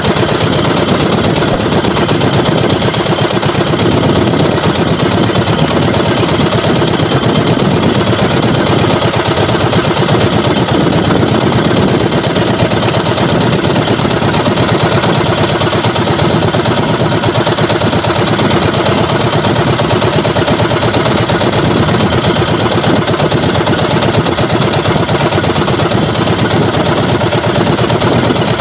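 Outrigger fishing boat's engine idling steadily.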